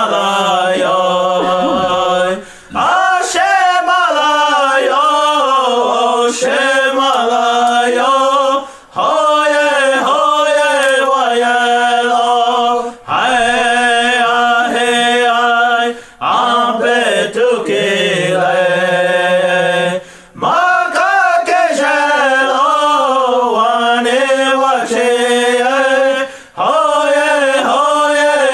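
Lakota/Dakota prayer song: a voice chanting in long phrases whose pitch slides up and down, with short breaks between phrases.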